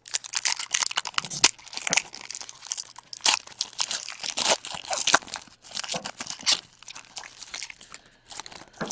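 Foil wrapper of a baseball card pack crinkling and tearing as it is ripped open by hand: a dense run of sharp crackles.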